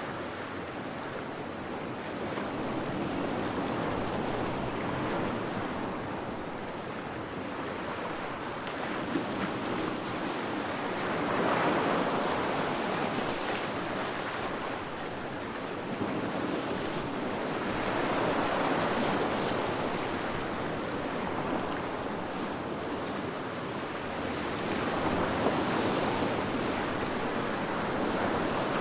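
Ocean surf breaking on a beach: a continuous wash of waves that swells and fades about every six to eight seconds.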